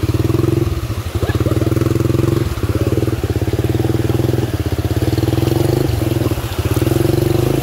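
A vehicle engine running steadily at low speed, close by, with a fast even firing pulse and small dips in level now and then.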